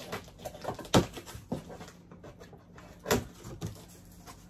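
Cardboard shipping box being opened: scissors slitting the packing tape, then the flaps pulled open, with irregular scrapes and knocks of cardboard. The loudest knocks come about a second in and about three seconds in.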